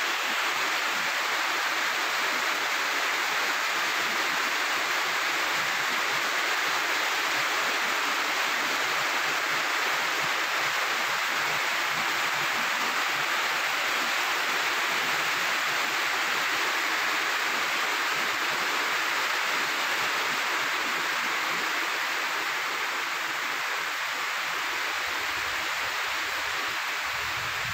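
Heavy rain pouring down as a steady, loud hiss, easing slightly near the end.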